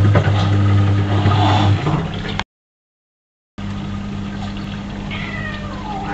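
Washing machine drain pump humming steadily as water gurgles out through the drain hose. The sound cuts out completely for about a second in the middle, then carries on a little quieter.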